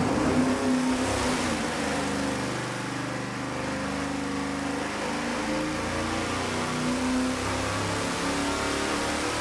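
Engine on an engine dynamometer making a full-load power pull on 110-octane leaded race fuel. It runs steadily and loudly, its speed climbing slowly through the pull.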